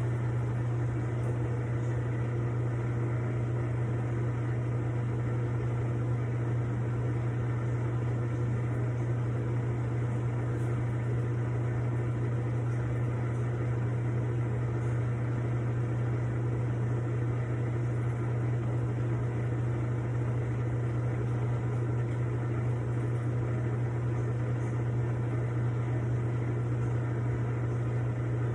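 Panda PAN6320W portable washing machine running a cycle, its motor giving a loud, steady low hum that does not change.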